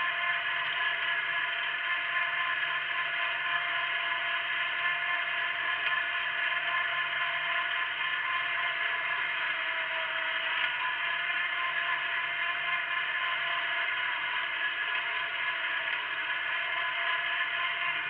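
Wheel Horse garden tractor engine running steadily under load while pulling a single-bottom moldboard plough through the soil; an even, unchanging drone.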